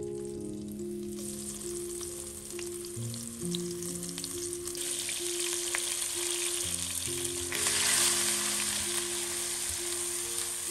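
Opor spice paste frying in hot oil in a pan, sizzling. The sizzle starts about a second in and grows louder from about halfway as the paste fries.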